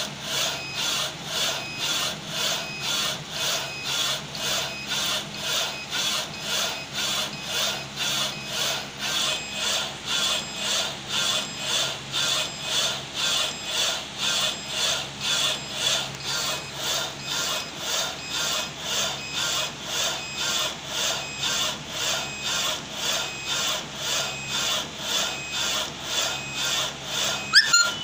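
Inkjet printer printing on ceramic mugs held in a rotary attachment: the print-head carriage shuttles back and forth with a steady rhythmic swish about twice a second. A brief sharp click comes near the end.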